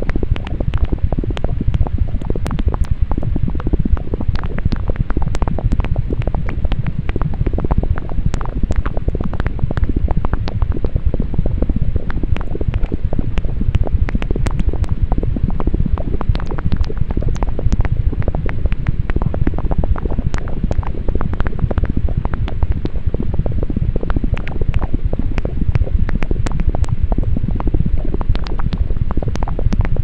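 Loud, steady low-pitched rumble with constant crackling clicks: a bass-heavy speaker-cleaning sound meant to shake dust out of a buzzing phone speaker.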